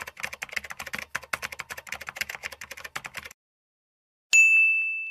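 Typing sound effect: a fast run of key clicks that stops about three seconds in. About a second later comes a single high ding, held for just under a second and louder than the clicks.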